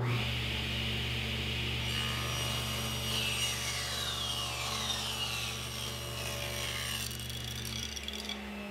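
Table saw running and ripping a wooden board to width: a steady motor hum with the blade's cutting noise through the middle of the cut, easing off near the end as the board clears the blade.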